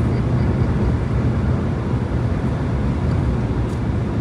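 Steady low rumble of a car driving, engine and tyre noise heard inside the cabin.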